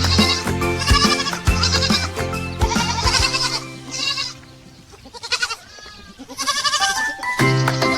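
Baby goats bleating in short, wavering calls over gentle background music. The music fades out a little after three seconds in and comes back near the end, leaving the bleats more exposed in between.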